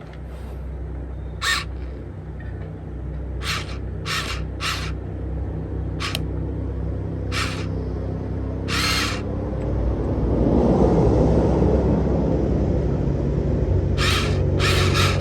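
Huina RC crawler excavator's motors and drive gears whining steadily, getting louder about ten seconds in, with about a dozen short, rasping high-pitched bursts over the top.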